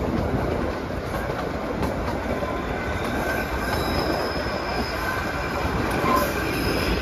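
Kalka–Shimla narrow-gauge toy train running, its wheels rumbling steadily on the track, with faint thin wheel squeal coming in from about halfway through.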